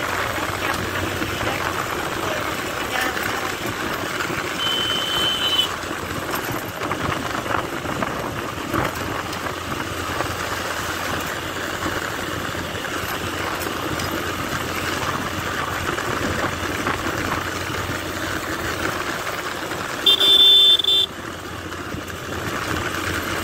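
Motorcycle riding along at road speed: steady engine and wind noise. A short horn beep comes about five seconds in, and a louder horn blast of about a second comes near the end.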